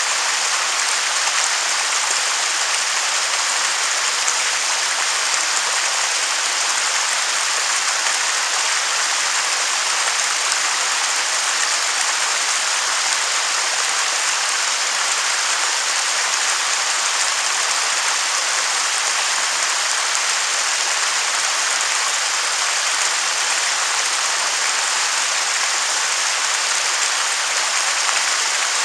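Waterfall: a steady, unbroken rush of falling water, bright and hissy with little low rumble.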